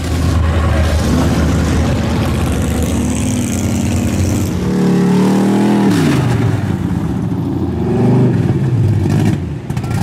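Pickup truck engine revving hard while the tires spin in mud. The pitch climbs and drops several times, with quicker rev swings near the end.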